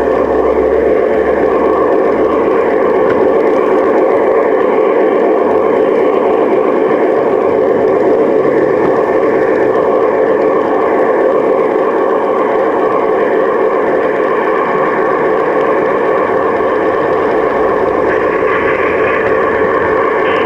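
Large-scale garden-railway model Shay locomotive running right beside the microphone, a loud, steady mechanical running noise from its drive and wheels on the track.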